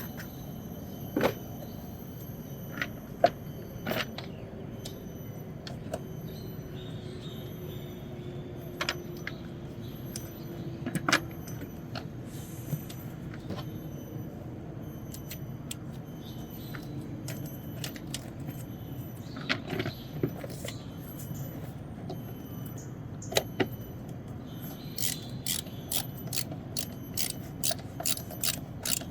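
Scattered clicks and knocks of plastic parts being handled as a new air filter is fitted into a Volvo XC90's air box, over a steady low hum. The clicks come faster and closer together near the end.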